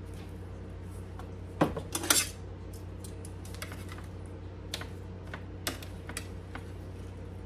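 Metal kitchen utensil and a plastic seasoning shaker clattering against a plate and the counter while chicken breasts are handled. A couple of loud knocks come about a second and a half in, then lighter clicks of metal on the plate.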